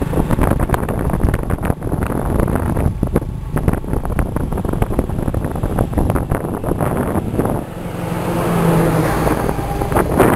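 Wind buffeting the microphone over the road and engine noise of a moving vehicle. An engine note swells over the last couple of seconds as an oncoming truck goes by.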